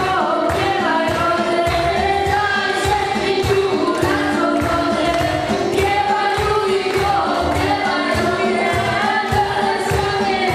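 Two boys singing a lively song into microphones, backed by a band with electric guitar and keyboard and a steady dance beat.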